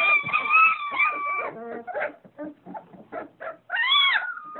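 Three-week-old Doberman puppies whining and squeaking: a long high whine, then a run of short squeaks, then a squeal that rises and falls near the end.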